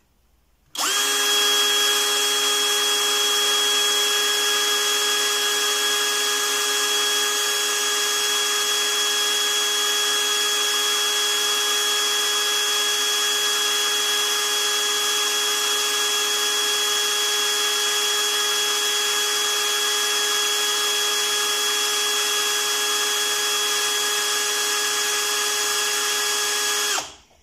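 Parkside X12V Performance 12 V brushless drill-driver running without load in first (low) gear, chuck at about 370 rpm: a steady whine with several steady tones that starts about a second in and stops just before the end. That speed is about 30 rpm short of the rated figure, which the owner tentatively puts down to a new motor whose mechanics have not yet settled in.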